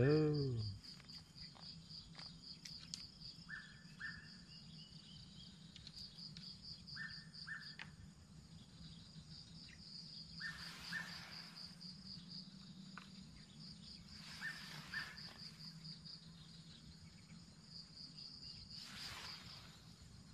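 Insects trilling in a steady, high, pulsing chirr, with a short two-note call repeated every three to four seconds and a few soft hissing swells. A brief voice sounds at the very start.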